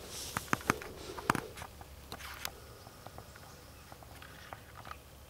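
Footsteps pushing through brush: several sharp snaps in the first second and a half, then lighter scattered ticks and rustling.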